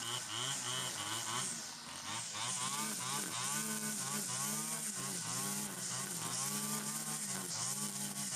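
Stihl FS 120 two-stroke brush cutter running hard while cutting tall cogon grass. Its engine note sags and recovers again and again as the cutting head sweeps through the grass, with a short drop in throttle about two seconds in.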